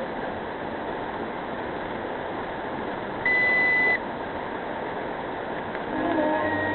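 Steady road and engine noise heard from inside a moving car, with a single loud high electronic beep lasting under a second about halfway through. Music begins near the end.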